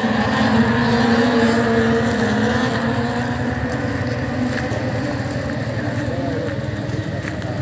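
A motorcycle engine running with a steady drone that slowly fades away, over the murmur of a crowd.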